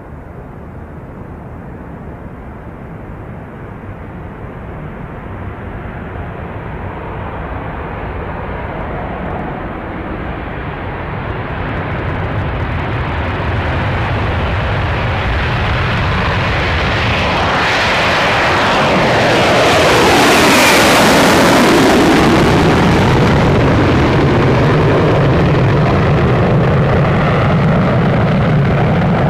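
B-1B Lancer's four afterburning turbofan engines at full afterburner on takeoff, the jet noise growing steadily louder as the bomber rolls and lifts off. It peaks about twenty seconds in with a falling-pitch sweep as it passes, then stays loud as it climbs away.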